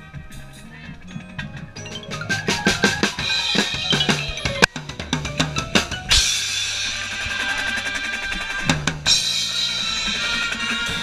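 Drum set played with the ensemble: a run of drum hits building to one sharp loud hit, then two long crash-cymbal washes, the second starting near the end, over held tones from the keyboard percussion.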